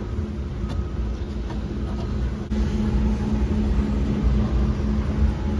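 A motor running steadily with a low hum, with a faint knock about two and a half seconds in.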